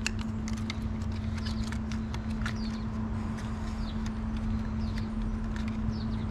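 Light scattered clicks and handling noises from a fishing lure and its plastic packaging being worked in the hands, over a steady low hum. Faint birds chirp a few times.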